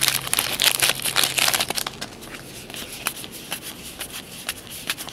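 Trading-card pack wrapper crinkling as it is torn open and pulled off. From about two seconds in come lighter clicks of the cards being handled and thumbed through.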